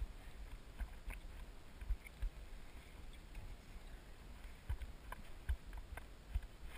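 Mountain bike rolling downhill on rough asphalt, with irregular low thumps and a few sharp clicks and rattles from the bike going over bumps.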